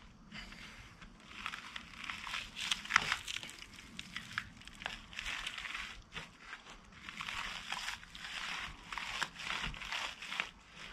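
Old wooden window frame being worked loose in its brick opening: scratchy scraping and crackling in uneven spells, with scattered sharp clicks and one louder crack about three seconds in.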